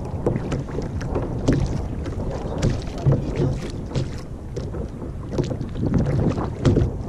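Small waves lapping and slapping irregularly against a plastic sit-on-top kayak hull, with wind buffeting the microphone.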